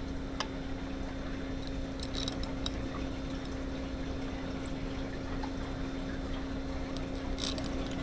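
Steady low hum over an even hiss, with a few faint clicks of a screwdriver on the head bolts of a small air-horn compressor.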